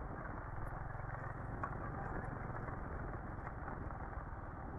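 A motorcycle engine running steadily under way, a low even rumble mixed with road and wind noise.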